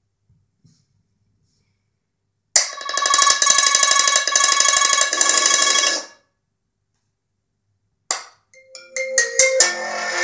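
iPad Air 2 speaker giving out a loud, stuttering buzz of several steady tones for about three and a half seconds, then stopping suddenly. This is the garbled playback fault the iPad shows after a reboot or shutdown. After a pause, music with separate plucked notes starts near the end.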